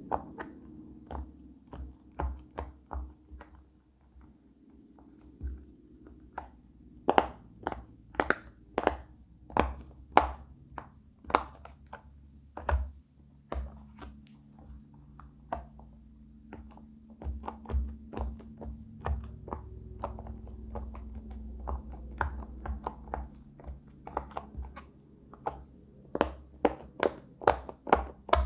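Bubbles of a silicone pop-it fidget toy being pressed down, making an irregular series of sharp little pops, some in quick runs.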